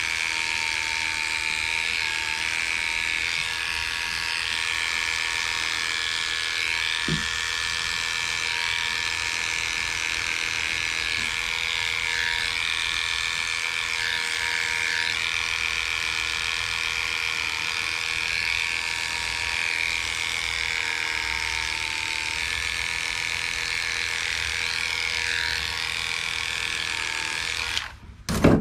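Heiniger cordless dog clippers running steadily as they clip a Shih Tzu's coat, a buzzing hum with small wavers in pitch. The motor is switched off shortly before the end, followed by a sharp click.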